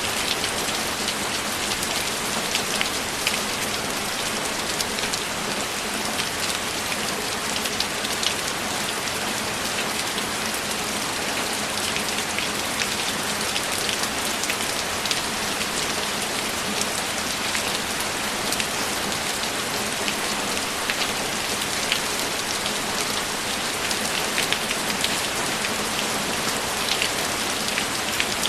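Steady rainfall: a dense, even hiss of falling drops with scattered small ticks of single drops, unchanging throughout.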